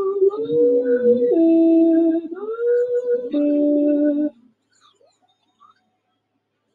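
A voice singing long, drawn-out notes that slide up or down from one pitch to the next, several in a row, cutting off about four seconds in.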